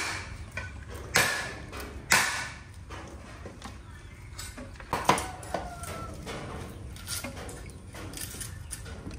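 A few sharp knocks and clatters of kitchen work with cookware and utensils, the loudest about one and two seconds in and another about five seconds in, with lighter ticks between.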